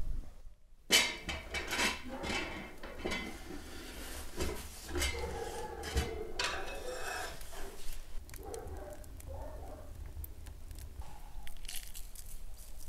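Metal cooking pot and its lid clinking and knocking, with scraping, as the pot is handled and pushed into a wood-fired oven with a wooden-handled oven fork. There is a sharp knock about a second in, then irregular clatter and scraping.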